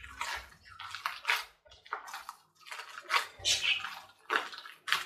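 Gloved hand kneading a wet mash of boiled potato and raw egg in a glass bowl: a rapid series of wet squishing strokes, about two a second.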